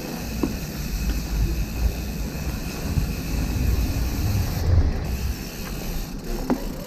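Bicycle in motion on a trail: a low rumble from the riding, heaviest through the first five seconds and peaking just before the five-second mark, then easing, with a few scattered clicks and rattles from the bike.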